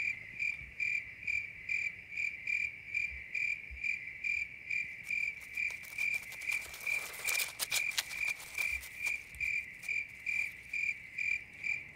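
A cricket chirping in a steady rhythm, a short high note a little over twice a second. A brief rustling joins it just past halfway.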